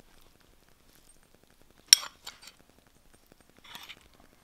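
Metal spoon clinking against a ceramic bowl while food is served: one sharp clink about two seconds in, then a couple of lighter taps and a brief scrape near the end.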